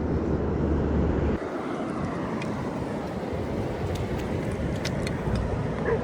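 Steady rush of ocean surf with wind rumbling on the microphone; the low wind rumble drops off suddenly about a second and a half in, and a few faint ticks sound later.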